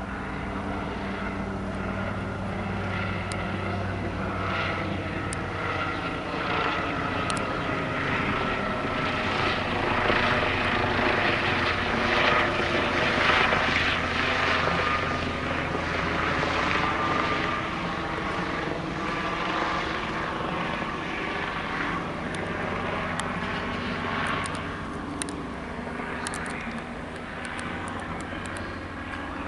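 Class 66 diesel-electric locomotive's two-stroke EMD V12 engine running as the locomotive approaches slowly, a steady droning note whose pitch shifts slightly as it works. It grows louder toward the middle, then eases back.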